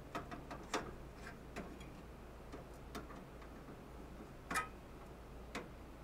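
Scattered light clicks and taps of a screwdriver working screws out of a metal equipment module in a Simplex 4100 fire alarm panel; the loudest come about three-quarters of a second in and again about four and a half seconds in, over a low steady hum.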